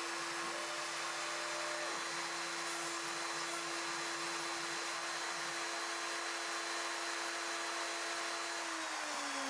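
High-speed router spindle of a CNC-Step High-Z CNC router running with a steady whine and hiss while drilling holes in a carbon-fibre sheet, with a lower hum pulsing on and off. Near the end the whine falls in pitch as the spindle winds down.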